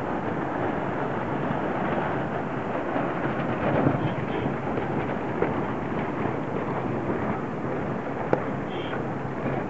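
Steady rushing noise of wind and water aboard a racing sailboat, with a few sharp knocks.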